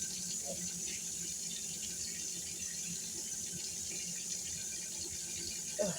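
Kitchen faucet running steadily into a sink.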